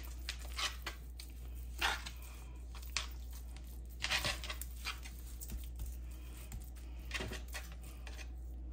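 Hands massaging a spice rub into a raw salmon fillet on a plastic cutting board: a few short, soft squishing and rubbing noises scattered through.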